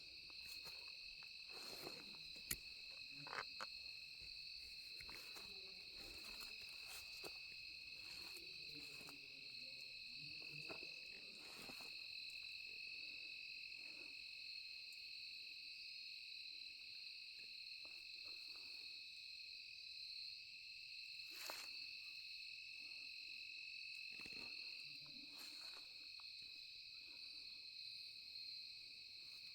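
Steady insect chorus: two unbroken high-pitched trills sounding together, with a few faint clicks and rustles scattered through.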